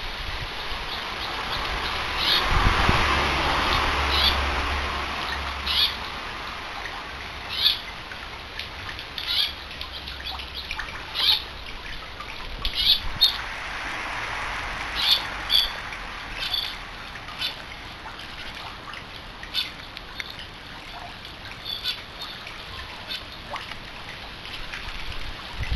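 A sparrow giving short, sharp chirps one at a time, about one every second and a half. Beneath them a broad rushing noise swells a few seconds in and again around halfway.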